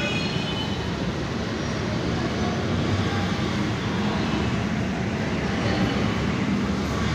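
Steady low rumble of a running escalator under a general hubbub of a busy metro station.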